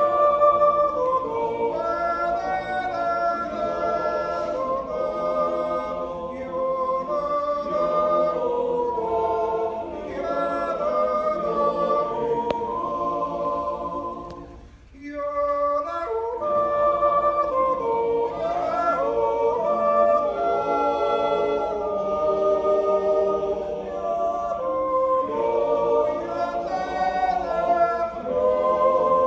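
Male yodel choir singing a Swiss Jodellied a cappella in several voice parts, holding full chords. It breaks off briefly about halfway through between phrases, then resumes.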